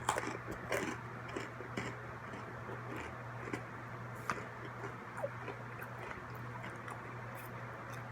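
Crunchy pretzels being chewed: irregular sharp crackles and clicks, a few louder ones near the start, over a steady low hum.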